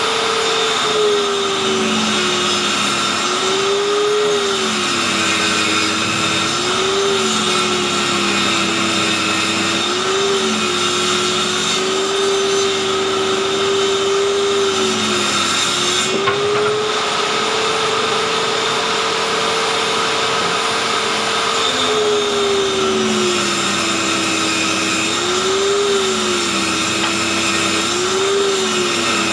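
Handheld electric circular saw mounted under a table as a table saw, running and ripping boards: its steady whine drops in pitch several times as wood is fed into the blade and rises again as it runs free.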